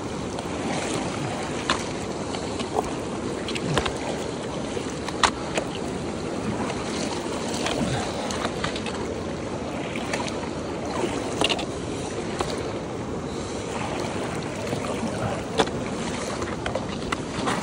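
South Fork of the San Joaquin River rushing steadily over a cobble bar close by, with scattered short sharp clicks.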